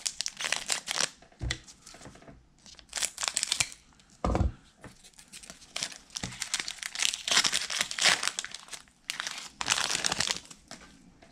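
A 1990-91 SkyBox basketball card pack being torn open by hand, its wrapper crinkling and crumpling in repeated bursts, with one soft thump about four seconds in.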